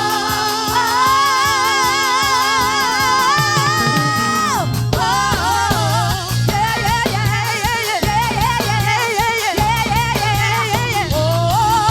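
A woman singing a praise song with heavy vibrato over a band with bass and drums. She holds one long wavering note for about four seconds, breaks off, then goes on in shorter phrases.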